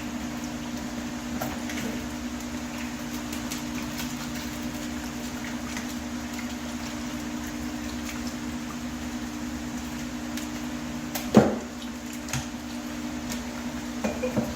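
A steady low hum with scattered light clicks and scrapes as a metal HVAC vent register is worked clean of old paint, and one sharp knock about eleven seconds in.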